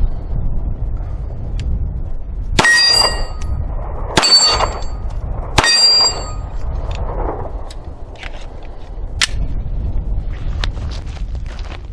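Steel target plates clanging three times, each a sharp metallic strike followed by a brief ringing tone, with wind rumbling on the microphone.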